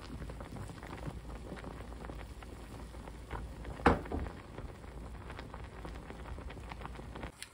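Saucepan of water at a rolling boil with peeled taro parboiling in it. The thick foam bubbles with a steady crackling, popping patter, and one sharper, louder pop or knock comes about four seconds in.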